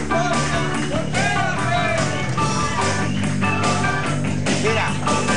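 Music with a steady beat and a wavering melody line over sustained low notes.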